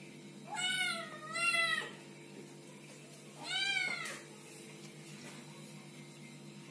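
Kitten meowing three times: two high calls back to back about half a second in, then one more about three and a half seconds in, each rising and falling in pitch. A faint steady low hum runs underneath.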